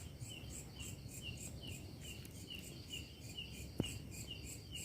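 Insects chirping in a steady rhythm, about three chirps a second, with one short click about four seconds in.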